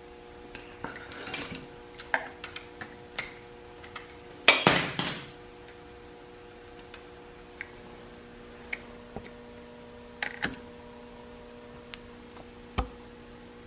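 Metal hand tools and engine parts clinking and knocking during engine reassembly, in scattered single clicks with a louder metallic clatter about four and a half seconds in. A faint steady hum sits underneath.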